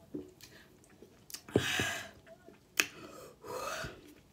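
Someone drinking from a can of sparkling drink: sharp mouth clicks and gulps, with two short breathy exhales between the sips.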